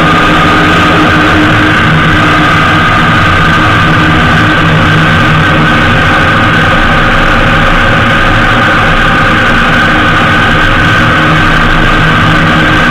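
Honda Gold Wing GL1800 motorcycle riding at a steady road speed: its flat-six engine running evenly under loud wind and road noise, picked up by a camera mounted low on the fairing. The pitch holds level, with no gear changes or revving.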